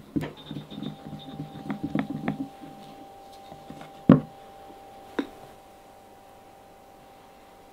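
Silicone spatula stirring and scraping in a small glass bowl of batter, with quick light taps on the glass, then a sharp knock against the glass bowl about four seconds in and a lighter one a second later.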